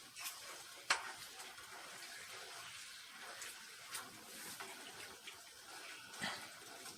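Chicken pieces frying in hot oil in a pan, a steady sizzle with a few sharp clicks, the loudest about a second in.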